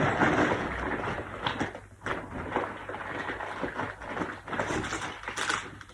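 Packaging rustling and being handled, with many small irregular clicks and knocks.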